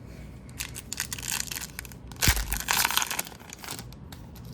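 Wrapper of an Upper Deck hockey card pack crinkling and tearing open in a run of rustling bursts. The loudest burst comes a little past two seconds in.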